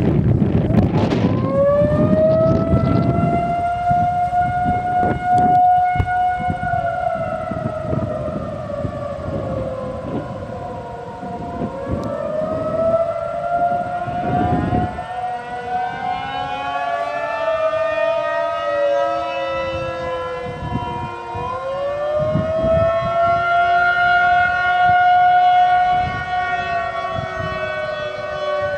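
Outdoor tornado warning sirens sounding during a system test. A siren winds up about a second in, then several siren tones at different pitches overlap, slowly rising and falling. Wind buffets the microphone.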